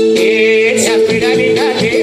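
Live Nepali dohori folk music: a singer's wavering voice over a held chord and a steady drum beat.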